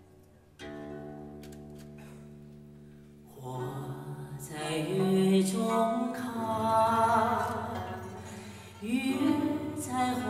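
A soft sustained chord, then about three seconds in the accompaniment swells and a female singer comes in with a slow melody sung with vibrato.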